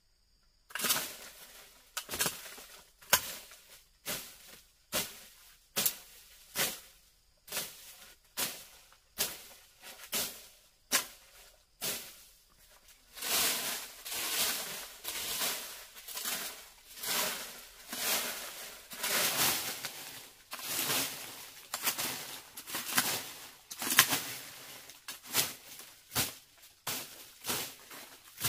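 Repeated scraping or brushing strokes, about one a second, each a short hiss; in the middle they come longer and closer together.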